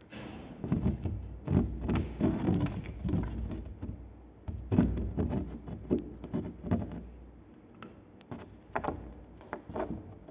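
Irregular rustling and soft thumps with a low rumble, heavy through the first seven seconds, then a few sharp clicks near the end.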